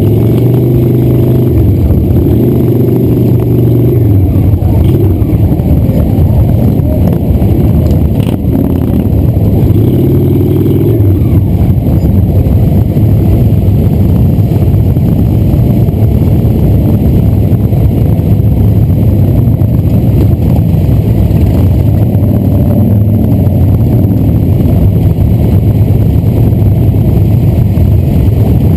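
Motorcycle engines running at low speed in slow stop-and-go traffic: a steady, loud, low rumble from the camera bike and the cruisers packed around it. The engine note shifts a few times as the throttle is worked.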